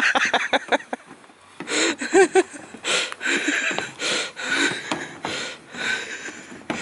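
A man gives short laughs and breathes hard with effort while hauling a seal carcass down a wooden walkway. Rough scuffing bursts come about once a second from his footsteps and the seal's body against the boards.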